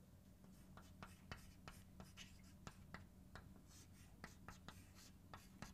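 Faint writing by hand: short scratchy strokes and taps, a few a second at an uneven pace, over a low steady electrical hum.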